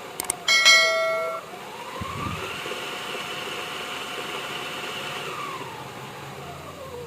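Small DC motor whining as it speeds up, runs steadily at speed, then slows down, its pitch rising, holding and falling. Just before it spins up come a couple of clicks and a loud, short steady tone.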